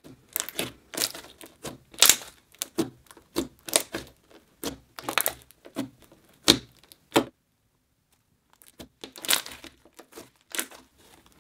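Slime being squished, pressed and stretched by hand, giving off an irregular run of sharp clicks and crackles, one or two a second. The clicking stops for about a second a little past the middle, then starts again.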